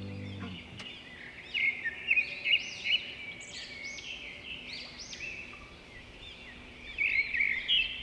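Small birds chirping: quick, high-pitched calls come in two bouts, one from about one and a half to three and a half seconds in and another starting near the end. The tail of soft background music fades out in the first half second.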